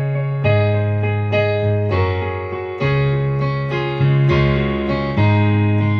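Electric piano playing slow sustained chords, a new chord struck about once a second.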